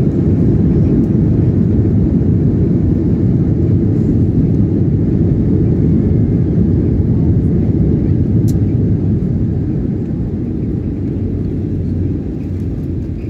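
Airliner cabin during the landing rollout: a loud, steady low roar of the jet engines and wheels on the runway, easing off somewhat about ten seconds in as the plane slows.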